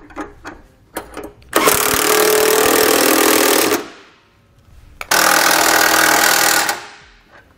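Cordless impact wrench driving bolts tight with a 3/4-inch socket, in two runs of about two seconds each with a short gap between, after a few light clicks.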